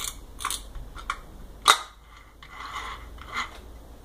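Metal shaft and plastic housing of a Brastemp washing-machine transmission clicking and clacking as they are fitted together by hand: a string of sharp clicks, the loudest about a second and a half in, with a short scrape near the middle.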